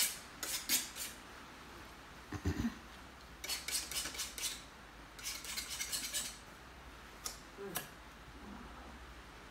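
Quick clusters of short, scratchy dabbing strokes as paint is worked onto a canvas, in bursts of about a second with pauses between, then a couple of single strokes near the end.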